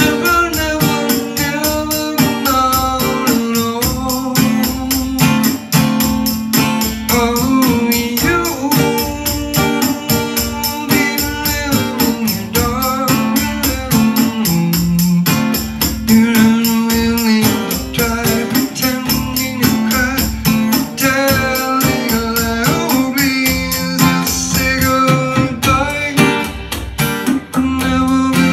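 A man singing with his own steadily strummed acoustic guitar.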